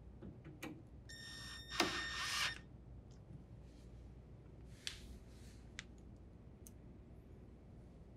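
Cordless drill driver running briefly, for about a second and a half, as it drives a Phillips screw into a refrigerator freezer door's metal slide rail. A few faint clicks follow.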